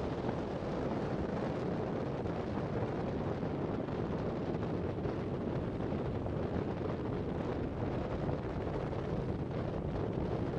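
Wind blowing across the microphone: a steady low noise with no clear engine note or horn.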